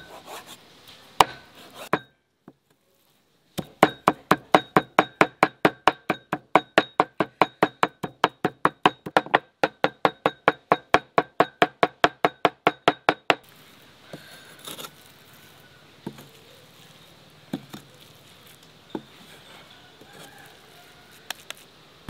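A kitchen knife chopping raw chicken on a wooden log chopping block, mincing it in a fast, even run of about four knocks a second for some ten seconds. A few single knocks of the blade on the block come before the run and scattered ones after it.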